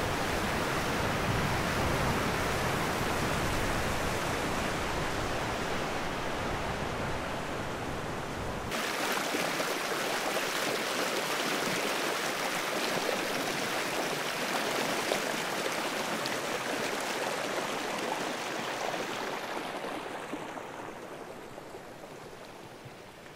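Muddy flash-flood water rushing and churning across a gravel road in a steady roar. About nine seconds in the sound changes abruptly to a brighter, hissing rush of turbulent rapids without the low rumble, and it fades near the end.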